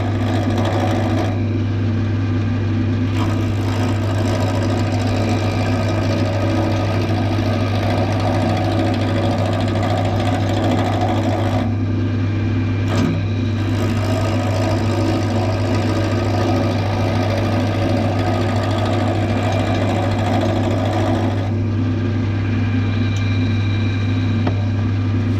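Clarke CWL1000CF wood lathe running steadily at its slowest speed with a constant low motor hum, while a small roughing gouge cuts a rough blank; the scraping noise of the cut comes and goes in stretches of several seconds, dropping out briefly about a second in, around twelve seconds in and again near the end.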